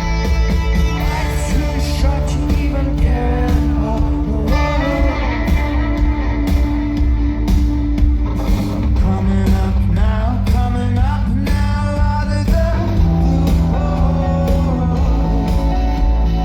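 Live rock band in concert: a lead vocal sung over electric guitar, bass and drums, loud and steady.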